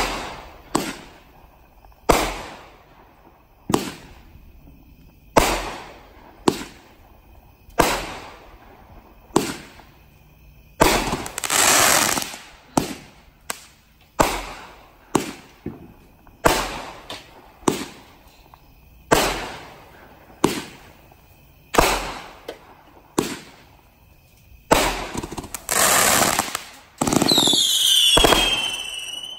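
A 33-shot consumer fireworks cake firing: sharp launch-and-break reports about once a second, two longer stretches of crackle partway through and again near the end, and whistles falling in pitch just before the end.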